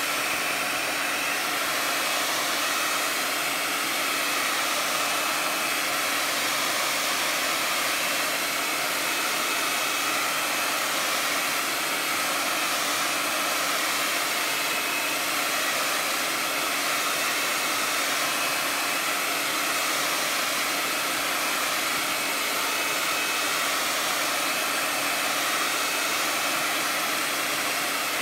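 Handheld hair dryer running steadily, a continuous rush of blown air with a faint steady whine, drying freshly applied Mod Podge glue on a paper collage.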